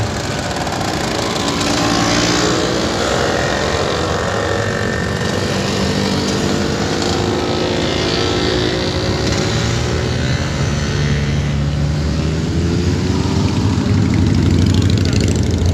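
Motorcycles riding past one after another at low speed, their engines running and shifting in pitch as each goes by, with a deeper engine getting louder from about ten seconds in.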